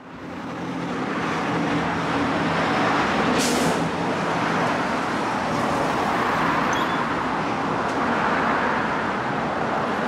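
Steady road traffic noise with a low engine hum, and a short hiss about three and a half seconds in.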